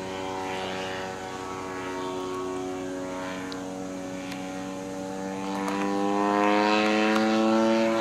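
Radio-controlled aerobatic model airplane's motor and propeller droning overhead in flight. The pitch sags slightly and then climbs, and the drone grows louder over the last couple of seconds.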